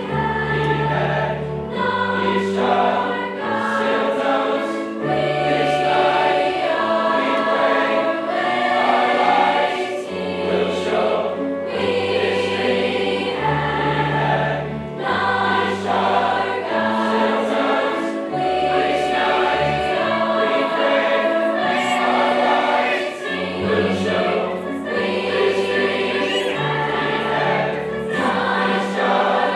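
A choir singing with instrumental accompaniment, held chords over a moving bass line.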